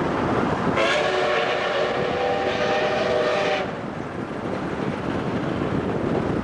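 Steam locomotive whistle: one long blast of several tones together, lasting about three seconds and starting about a second in. Under it runs a steady rush of wind and road noise from the car pacing the train.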